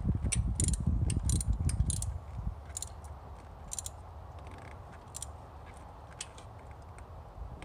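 Socket ratchet clicking as its handle is swung back and forth, tightening a thermostat housing bolt down onto a new gasket. The clicks come in short runs and then singly, over a low rumble in the first two seconds.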